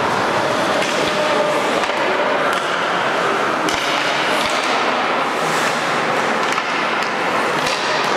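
Ice hockey play on the rink: skates scraping and carving across the ice in a steady wash of noise, with a few sharp knocks of sticks and puck.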